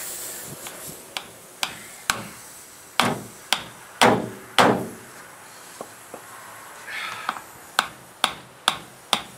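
A series of sharp metallic knocks as a tire-plug reamer tool is worked into a punctured tire: a few irregular strikes in the first half, then a steadier run of about two a second near the end.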